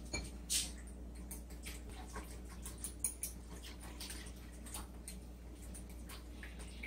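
Faint, irregular light clicks of a utensil against a ceramic bowl as lemon-garlic marinade and olive oil are stirred together.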